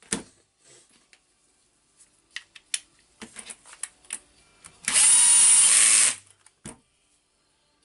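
Cordless drill-driver driving a housing screw into a rotary hammer's casing in one run of about a second, with a steady motor whine. Light clicks and taps of the bit seating in the screw head come before it.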